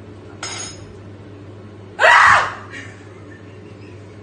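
A short, loud shriek about two seconds in, over a steady low hum.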